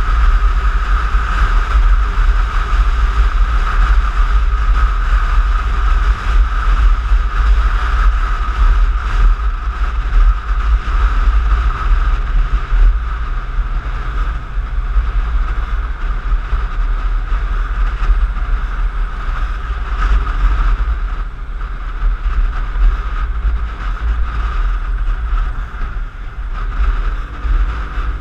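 Piaggio X9 maxi-scooter riding in traffic: heavy wind buffeting on the microphone, with the scooter's engine and a steady whine running underneath.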